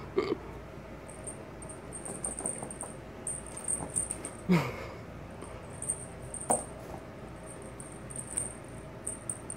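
Kitten scampering and scuffling on foam floor mats and a rug while playing with a wand toy, giving a few light knocks. A faint, high chirping comes and goes in short bursts throughout, and a falling swoop sounds about four and a half seconds in.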